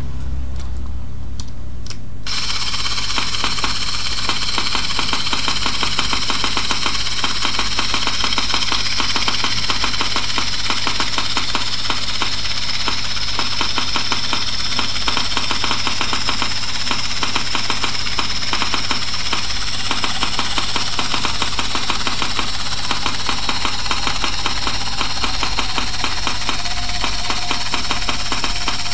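3Shape TRIOS intraoral scanner handpiece buzzing steadily while it scans, starting abruptly about two seconds in, over a low steady hum.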